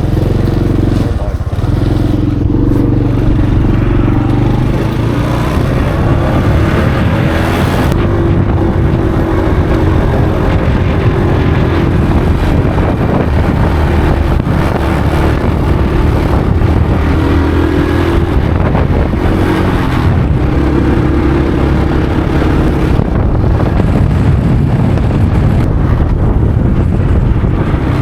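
Motorbike engine running on the move, its pitch rising and falling as it speeds up and slows, over a heavy continuous low rumble.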